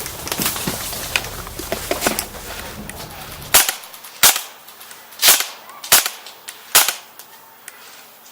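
Airsoft guns firing single shots: about five sharp cracks at irregular intervals through the second half, after a stretch of rumbling noise and lighter clicks.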